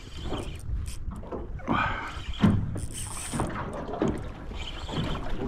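Water slapping against the hull of a small aluminium boat, with irregular knocks and handling noises and one sharp knock about two and a half seconds in.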